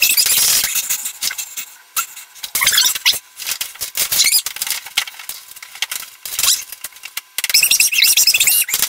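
A boy's angry shouting and screaming in German, played four times too fast so it comes out as high-pitched, chipmunk-like squeaks and squeals, broken up by many sharp clicks and knocks.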